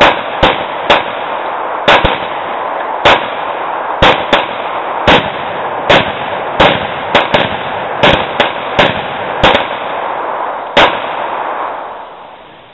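Gunshots fired in quick, irregular succession, about seventeen in all, some barely a quarter second apart, over a steady loud hiss that fades away near the end.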